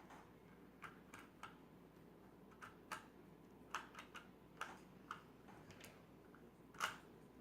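Rubik's Cube layers being twisted by hand: faint, irregular plastic clicks, about a dozen, with the loudest one near the end.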